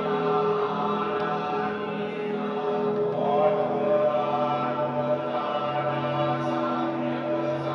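Background music of sustained chant-like vocal or choral tones, the held notes shifting to a new chord about three seconds in.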